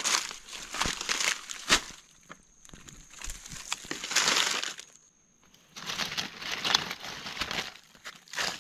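Dry fallen leaves crackling and rustling in irregular bursts as leaf litter and undergrowth are pushed aside by hand, with a few sharp snaps mixed in.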